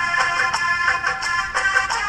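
Instrumental music from a Hindi film song's backing track: quick, regularly repeated high notes with little bass, and no singing.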